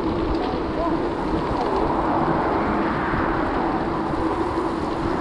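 Bicycle riding noise: tyres rolling along the trail and wind rushing over a chest-worn action camera's microphone, with a steady low hum.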